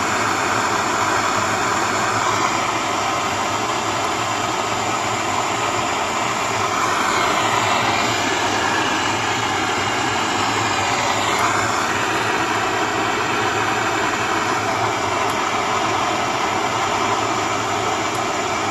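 MAP gas hand torch burning with a steady hissing rush of flame, played on a seized two-stroke piston to loosen its wrist pin. The tone shifts slightly about midway.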